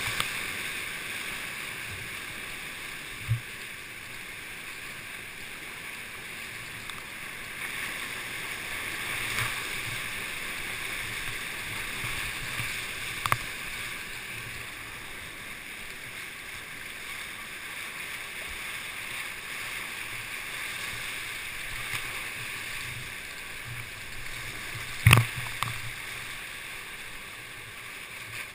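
Class V whitewater rapid rushing and hissing steadily around a kayak, heard close to the water, with a few sharp knocks; the loudest knock comes about three-quarters of the way through.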